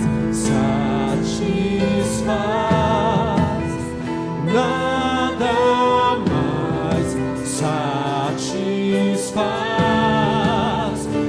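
Christian worship song played live by a church band, with a singer holding long, wavering notes over steady sustained chords.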